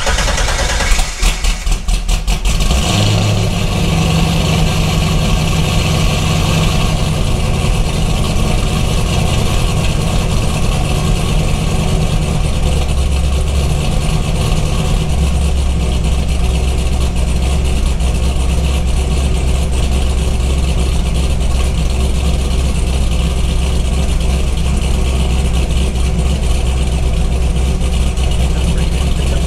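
Cold start of a C5 Corvette's supercharged 5.7-litre LS V8, which has a BTR cam, long-tube headers, an LSA supercharger and a Z06 titanium cat-back exhaust. The starter cranks for about two seconds, then the engine catches and runs at a steady idle.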